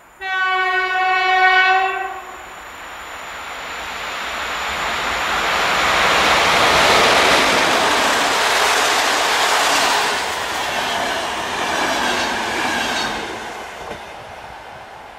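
Horn of a PKP Intercity Ep07 electric locomotive, one steady blast of about two seconds. Then the locomotive and its passenger coaches pass, with wheel-on-rail rolling noise and clickety-clack that swells to its loudest about seven seconds in and then fades away.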